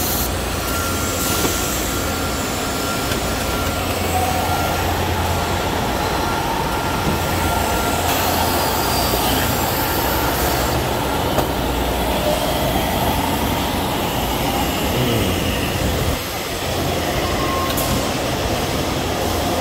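Vacuum glass lifter's pump running steadily: a constant low hum under an even mechanical noise.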